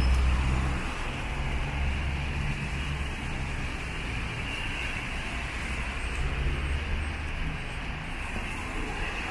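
Street traffic on a rain-wet avenue: a steady hiss of tyres on wet road under the low hum of passing engines, loudest in the first second.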